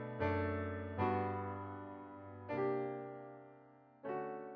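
Background music: slow keyboard chords, four struck in turn, each left to fade away.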